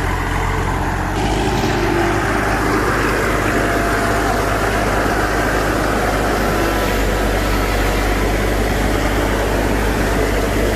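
A vehicle engine running steadily with a low hum; about a second in, a broader rushing noise joins it and holds.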